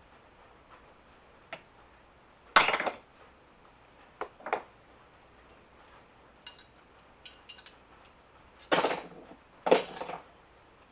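Scattered metal clinks and knocks of tools and parts against a Homelite XL chainsaw while the bar is fitted and the bar nuts tightened. There is a louder clank about two and a half seconds in, light ticks in the middle and two more louder clanks near the end.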